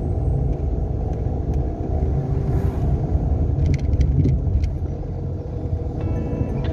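Cabin noise of a Renault Sandero on the move: a steady low engine and road rumble. Faint music begins near the end.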